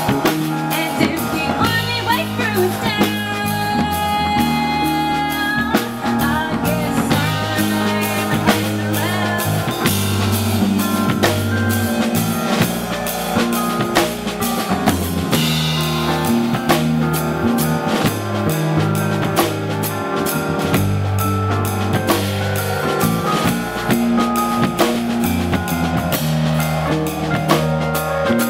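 Live rock band music: electric bass guitar holding low notes under a drum kit keeping a steady beat, with a higher melodic line on top.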